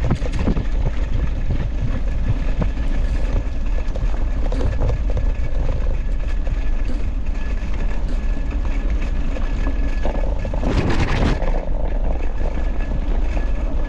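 Dog scooter rolling fast over a bumpy dirt track, its wheels and frame rattling and knocking, with steady wind rumble on the handlebar microphone. A louder rushing burst comes about eleven seconds in.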